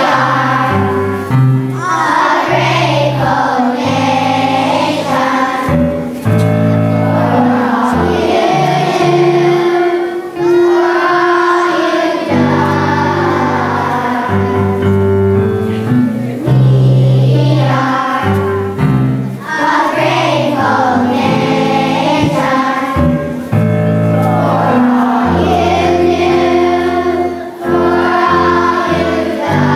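Children's choir singing a song together over instrumental accompaniment with a steady bass line.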